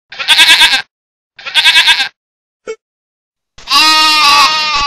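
Goat and sheep bleating: two short, quavering bleats, then one longer bleat starting about three and a half seconds in.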